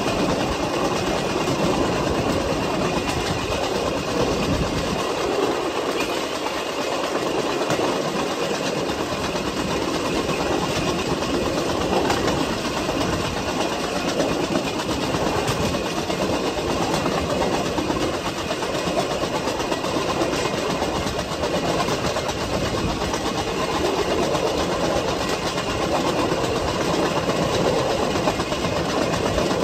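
Steel wheels of a pedal-powered vélorail rail bike rolling along old railway track: a steady rumble with occasional clacks over the rail joints.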